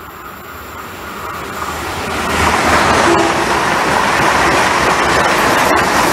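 Passenger train approaching and passing through the station at speed without stopping. The rumble of wheels on rail and rushing air builds over the first two seconds, then stays loud as the carriages go by.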